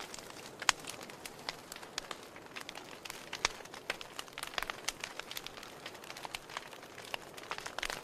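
Wood fire burning in a fireplace, crackling with irregular sharp pops and ticks over a soft steady hiss. The louder pops come just under a second in and about three and a half seconds in.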